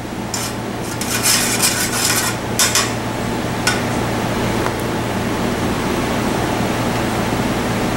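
Small steel clutch parts, a push rod and lifter piston, clinking and scraping against a dish as they are dipped in oil. There is a run of clinks in the first three seconds and one more about a second later, over a steady background hum.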